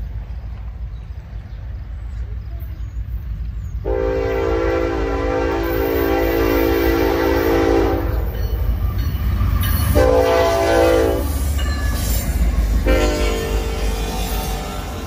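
Diesel freight locomotive's multi-chime air horn sounding three blasts, long, short and long, starting about four seconds in, over the low rumble of a train.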